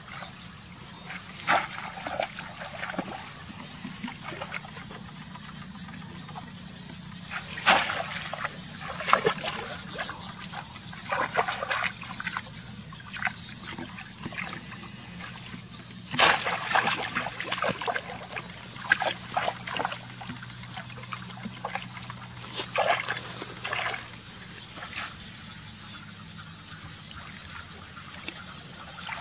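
Water splashing and trickling in irregular bursts, with clusters of splashes about eight and sixteen seconds in.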